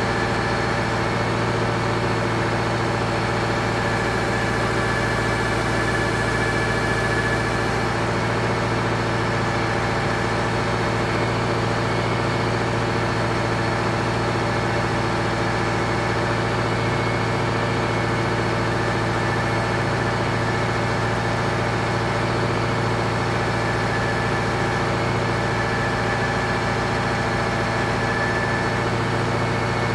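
Deutz DX 4.50 tractor's air-cooled four-cylinder diesel engine running at a steady speed, driving the hydraulics of a timber crane.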